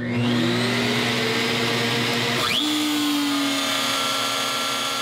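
DeWalt router, the Shapeoko CNC's spindle, switched on: its motor whine rises as it spins up over the first second or so, then runs steadily at speed. About halfway through, a short rising whine joins in and a second steady tone follows.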